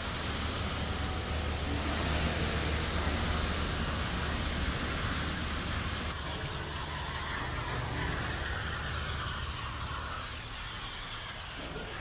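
Steady open-deck noise on a ship: a rushing hiss over a low, even hum. About six seconds in it changes abruptly and the hiss drops.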